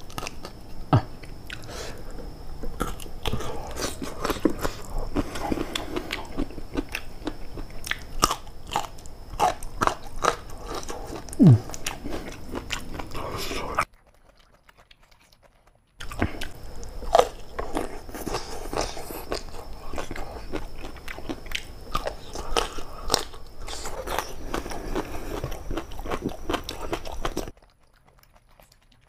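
Biting and chewing of boiled papaya stems in spicy pecel sauce, close up, with many quick sharp bite sounds. The eating stops for two short spells of near silence, one about halfway through and one near the end.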